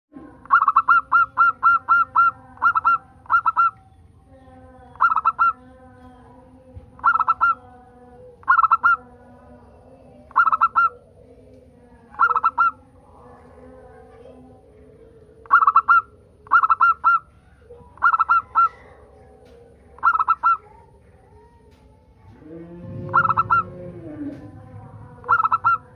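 Zebra dove (local perkutut) singing: short bursts of quick, high repeated notes every one to two seconds, over a fainter, lower steady sound. A louder low sound comes in near the end.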